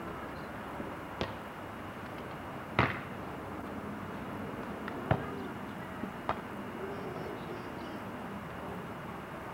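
A few short, sharp knocks or pops, four in all spread over several seconds, the second one the loudest, over a steady background hiss.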